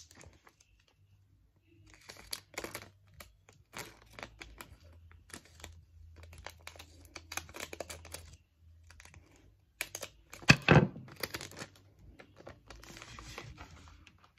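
Clear tape being pulled, cut with scissors and pressed down to double-tape a shipping package: a run of irregular crackles, rips and snips, loudest about ten and a half seconds in.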